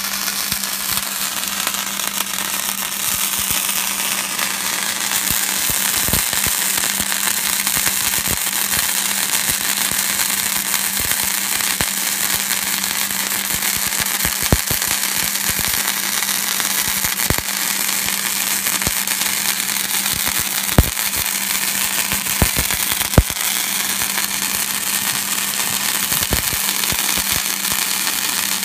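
Hobart Handler 140 wire-feed welder running a flux-cored wire bead: the arc's continuous crackling sizzle over a steady low hum, with a few sharp pops in the second half.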